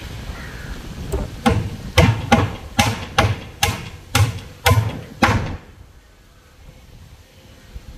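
Hammer blows on the wooden formwork boards around a concrete pillar: about ten sharp knocks, roughly two a second, that stop about five and a half seconds in.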